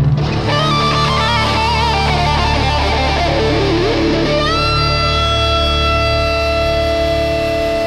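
Rock song with a lead electric guitar: quick notes with heavy vibrato, then a note bent up about four and a half seconds in and held, over bass and drums.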